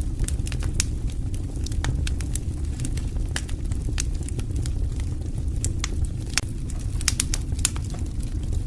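Wood campfire burning: a steady low rumble of flames with frequent, irregular sharp crackles and pops from the burning wood.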